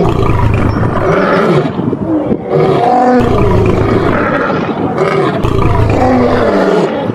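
Male lions fighting, roaring loudly and almost without a break.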